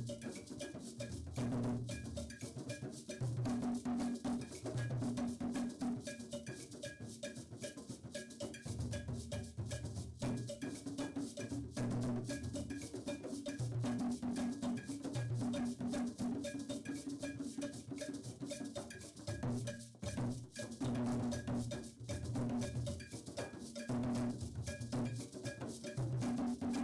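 Ensemble of hand-played barrel drums, with a metal bell ringing a steady repeating pattern over deep, rhythmic drum strokes.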